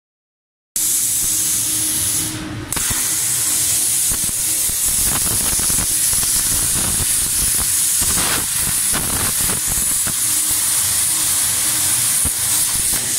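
Plasma torch of an ALFATEC CNC cutting table cutting steel sheet and tube: a loud, steady, high-pitched hiss that starts about a second in, dips briefly about two and a half seconds in, then runs on evenly.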